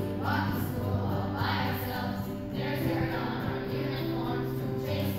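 A children's choir singing in unison over an instrumental accompaniment of steady held chords, which change about halfway through.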